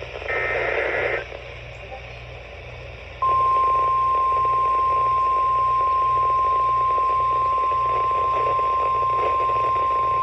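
The last burst of a NOAA Weather Radio SAME alert header: about a second of two-tone digital data squawk. About three seconds in, the steady 1050 Hz warning alarm tone starts and holds, over radio hiss. The alarm tone signals that a warning is being broadcast.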